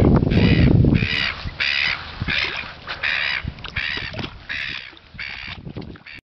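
Black swans calling: a run of repeated high calls, about one and a half a second, growing fainter toward the end. Wind rumbles on the microphone in the first second.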